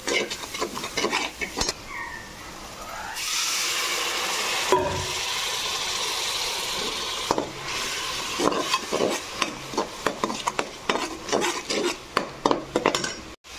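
A steel slotted spoon scraping and stirring a thick frying masala in a metal pan. About three seconds in, a little water goes into the hot oil and spices and the pan sizzles loudly and steadily for about four seconds. Then quick, repeated scraping strokes follow.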